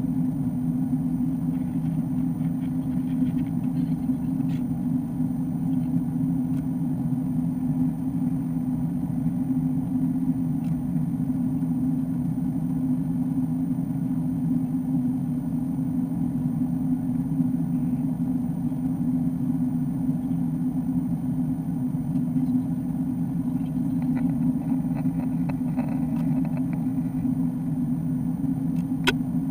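Steady cabin drone inside an Airbus A330-200 in flight, engine and airflow noise heavy in the low end and unchanging throughout. A single faint click near the end.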